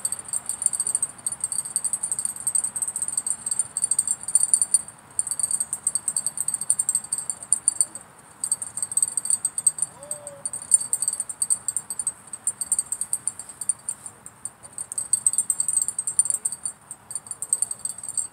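Insects buzzing in a loud, high-pitched, rapidly pulsing drone that drops out briefly a few times.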